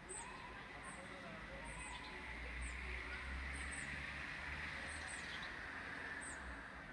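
Distant thunder rumbling low, swelling about two seconds in and dying away a few seconds later, while birds chirp with short high calls repeating about every second.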